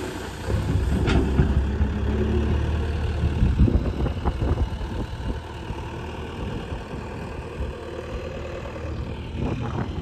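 JCB 3DX backhoe loader's diesel engine running while the machine works, with a few clanks in the first half. It is louder for the first five seconds, then quieter and steadier.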